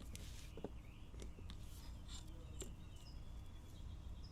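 Faint small birds chirping now and then, with a few soft clicks and snips from the cutting, over a low steady hum.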